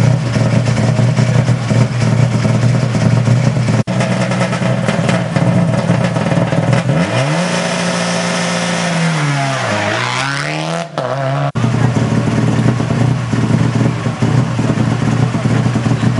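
Subaru Impreza rally car's turbocharged flat-four engine running at a steady idle, its pitch swinging up and back down about halfway through, with a brief break in the sound around then.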